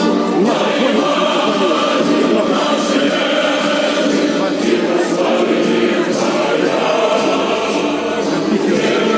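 A group of people singing together in chorus, many voices at once, steady throughout.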